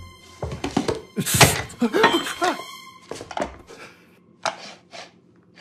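Film sound effects of objects being handled: a string of knocks, thuds and clatters, the loudest a little over a second in, then a few fainter, spaced-out knocks.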